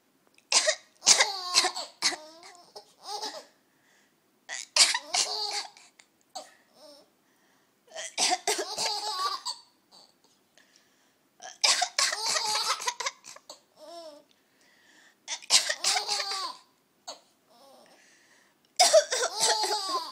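An adult coughing and a baby laughing in response, in six bouts about every three to four seconds with short quiet gaps between them.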